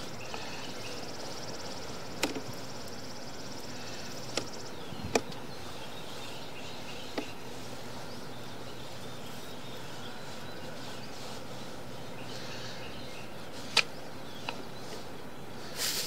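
Steady hiss with a sharp click or knock every few seconds, and a brief louder rustle near the end, as a sewer inspection camera on its push rod is fed down a drain line.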